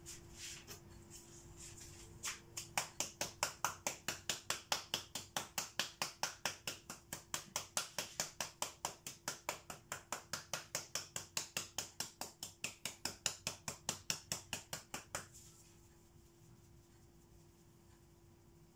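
Aerosol spray paint can being shaken, its mixing ball rattling in fast, even clicks, about five or six a second. The rattling starts a couple of seconds in and stops abruptly about three seconds before the end, leaving a faint steady hum.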